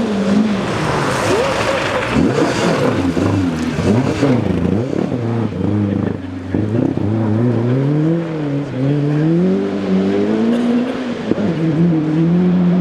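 Ford Escort rally car engine revving hard, its pitch repeatedly rising and falling with throttle and gear changes, then climbing steadily before dropping about eleven seconds in and settling to a steady note.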